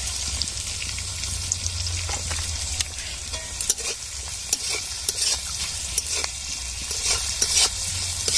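Sliced onions and green capsicum sizzling in oil in a metal kadai while a metal spatula stirs them, scraping against the pan in short, irregular strokes over the steady hiss of the frying.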